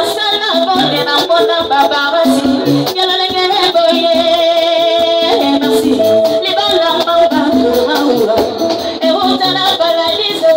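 A woman singing into a microphone over music with steady percussion, heard through a PA.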